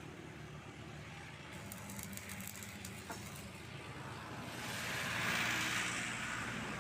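A hissing noise that swells and fades over about two seconds, a little past halfway, over a low steady hum.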